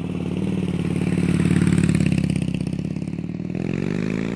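Harley-Davidson Fat Boy's 1690cc Twin Cam V-twin engine running with a rapid pulsing exhaust beat, then revving up, its pitch climbing, near the end.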